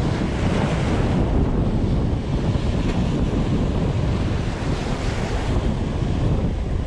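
Surf breaking and washing over a rocky shore, mixed with heavy wind buffeting the microphone: a steady, rough rush with no pauses.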